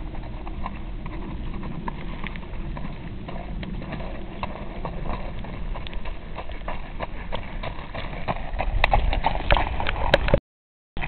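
Hoofbeats of a sorrel Quarter Horse mare under saddle on gravel, a run of sharp clicks that grows louder as the horse comes close in the last few seconds. The sound cuts out completely for about half a second near the end.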